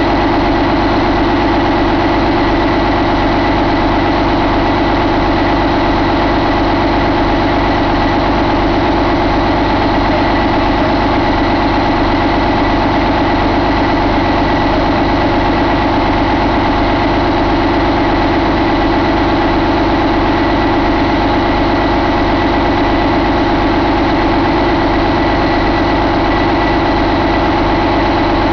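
2011 Detroit Diesel DD13 inline-six diesel engine idling steadily while test-run on an engine stand.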